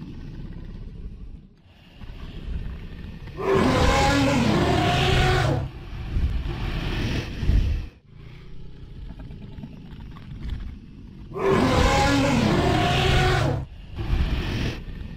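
Dragon roar sound effect: two long, loud creature roars with a wavering pitch, about eight seconds apart, with lower rumbling and growling between them.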